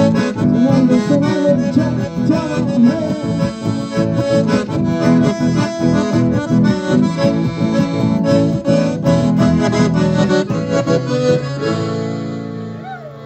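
Two button accordions and an acoustic guitar playing a rhythmic folk tune. Near the end it closes on a held chord that fades away.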